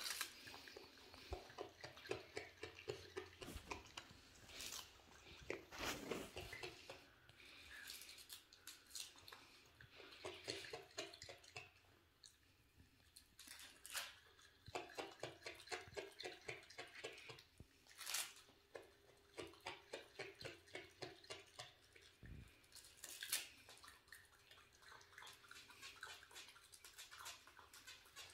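A pet raccoon chewing and crunching a napa cabbage leaf: runs of quick crunchy bites, several a second, with brief pauses between.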